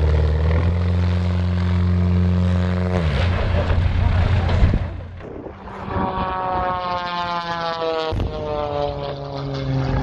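Aircraft engine running with a steady low drone that drops in pitch about three seconds in, followed by two falling-pitch sweeps, as of an aircraft passing by.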